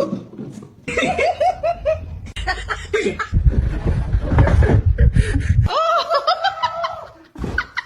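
A person laughing in short repeated bursts, then a longer drawn-out vocal sound near the end, with a heavy low rumble in the middle.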